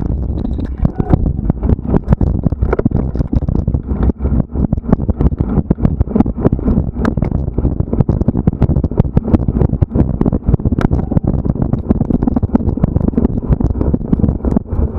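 Mountain bike rattling along a rough cross-country trail: dense, irregular knocks and clicks over a steady low rumble.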